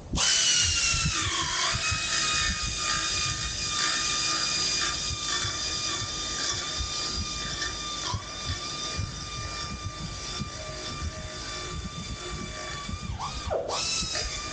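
High-speed electric power tool whining as it cuts or grinds the edge of a switch panel, its pitch dipping briefly under load. It is switched off near the end and spins straight back up.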